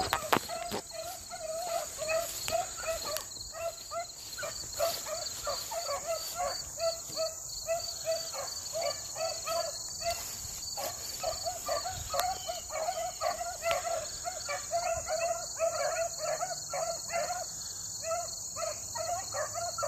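A pack of rabbit hounds baying in the distance as they run a rabbit through the brush, short yelping calls coming several a second without a break. A steady high trilling of insects runs underneath.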